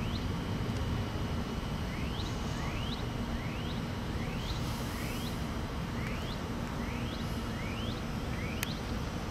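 Open-air ambience with a steady low rumble of wind and distant traffic. Over it, a small bird repeats a short, quick rising chirp about every half-second to second, with a single sharp click near the end.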